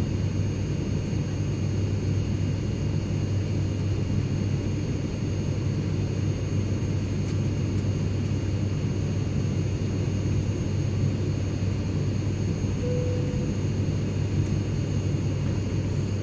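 Cabin noise inside a private jet in flight: a steady low drone with airflow rush and a few faint, thin high whines from the jet engines.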